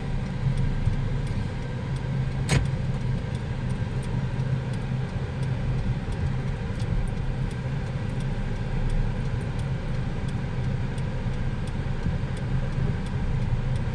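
A 2018 Hyundai Accent's 1.4 four-cylinder engine running steadily and evenly, its idle no longer hunting up and down now that the misfire is cured. A single sharp click comes about two and a half seconds in.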